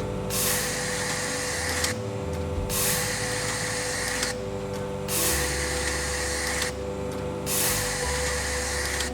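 Hissing that comes in long bursts with short breaks, about once every two and a half seconds, over a steady hum and low background music.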